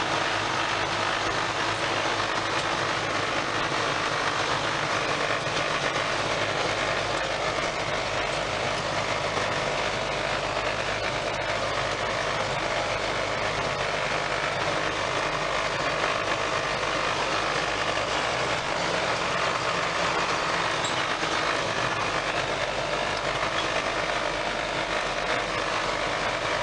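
John Deere 4450 tractor's six-cylinder diesel running steadily under load, an even drone that does not change.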